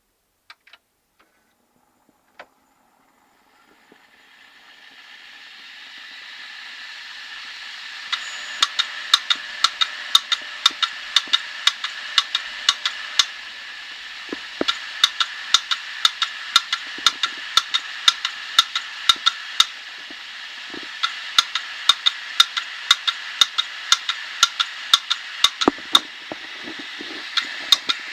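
Hard disk drive spinning up with a rising whir, then clicking sharply about twice a second over the steady spin: the drive seems to start but does not come ready, which is the repeated head clicking of a failing drive.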